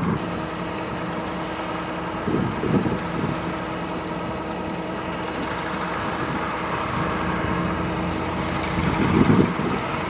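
Kubota DC-105X combine harvester running steadily while cutting rice, its diesel engine holding an even note. Wind buffets the microphone about two and a half seconds in and again near the end.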